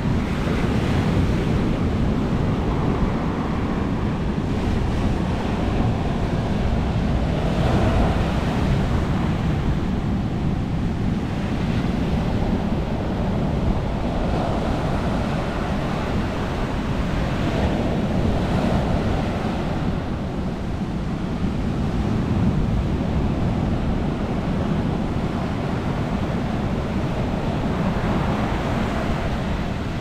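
Ocean surf breaking and washing up a sandy beach: a continuous rushing of waves that swells every few seconds as each breaker comes in.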